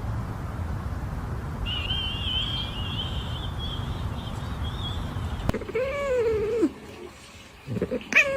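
A cat meowing twice in the second half: a drawn-out meow that falls in pitch at its end, then a short sharper one near the end. Before them, a thin high wavering squeal sits over a steady low rumble.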